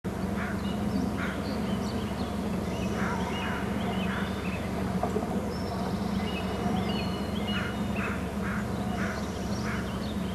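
Birds calling: repeated short harsh calls about every half second, mixed with high whistled notes that step up and down in pitch, over a steady low hum.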